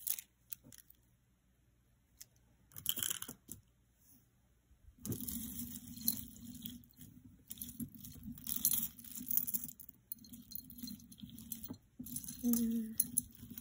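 A short clatter about three seconds in. From about five seconds there is steady rustling and crinkling as a box of costume jewelry is rummaged through and a beaded necklace is drawn out.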